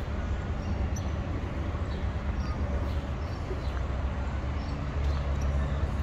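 Steady low rumble of open-air background noise, with faint scattered ticks.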